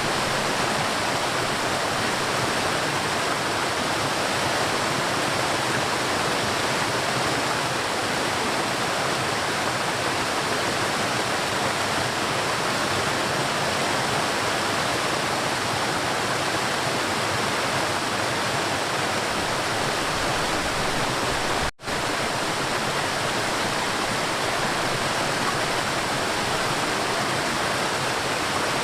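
River water flowing, a steady, dense rushing that cuts out for an instant about three-quarters of the way in.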